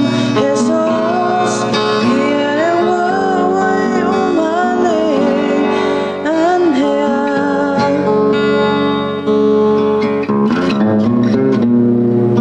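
A man singing a Balangao song to his own acoustic guitar. His voice stops about eight seconds in, and the guitar plays on alone with strummed chords.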